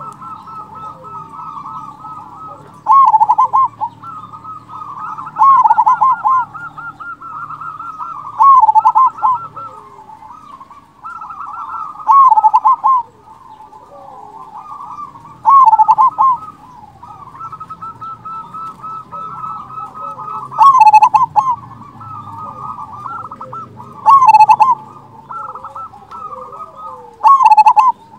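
Zebra dove (perkutut) singing its staccato cooing song: a loud, rolling 'kung' phrase comes eight times, roughly every three to four seconds, over a steady run of softer trilled coos.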